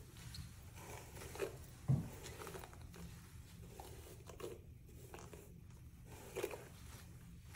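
Brief scraping and rustling strokes as a detangling brush and hands work through long wet hair, over a low steady hum, with a soft thump about two seconds in.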